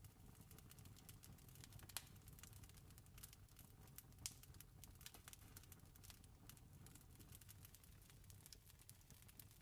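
Faint crackling of a wood fire: a dense scatter of small pops and snaps, with two louder pops about two and four seconds in, over a low steady rumble.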